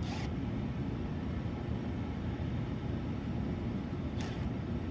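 Steady low machinery drone with faint steady tones, with a brief hissing noise just after the start and another near the end.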